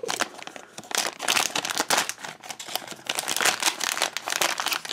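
Crinkling and rustling of a printed plastic-film blind bag being handled and opened by hand, in an irregular run of crackles.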